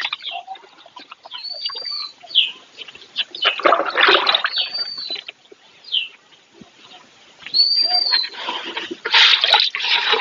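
Cows drinking from a trough, slurping and splashing in rough bursts lasting a second or two, while a bird repeats a short arching whistle about every three seconds.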